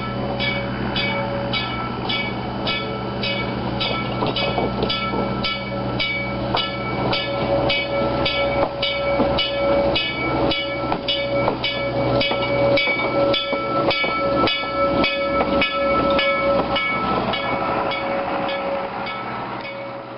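A train's bell ringing steadily, about two strokes a second, while railroad cars roll past with wheels clicking over the rail joints; the sound fades away near the end.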